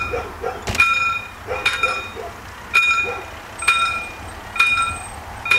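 Pre-warning bell (předzváněč) of a mechanical level-crossing barrier, ringing single ringing strokes about once a second: the warning that the barriers are about to be lowered for an approaching train.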